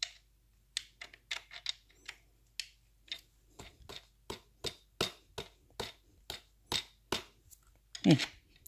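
A steady run of short, sharp clicks, about two to three a second, as a wheel stopper is worked along the slotted axle of a Clicgear golf cart. About eight seconds in comes one louder sound with a low falling tone.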